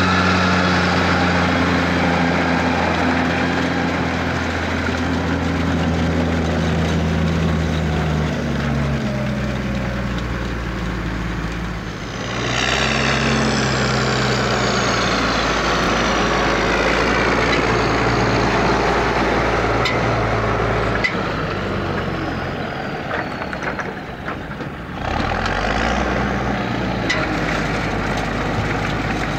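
Heavy farm tractor's diesel engine running, its engine note shifting a few times. From about halfway, a high whine falls slowly in pitch for several seconds.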